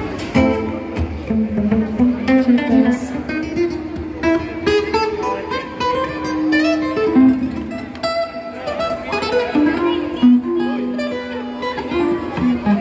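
Live band music, with a guitar playing a melody of single notes; it starts abruptly just after the beginning.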